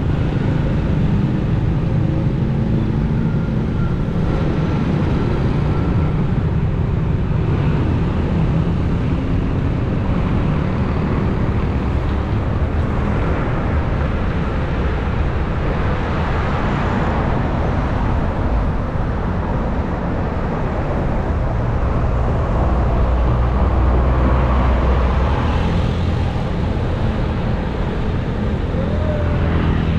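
Street traffic heard from a moving bicycle on a wet road: motorcycles and cars passing, with tyre hiss that swells twice as vehicles go by. A steady low wind rumble on the action-camera microphone runs underneath.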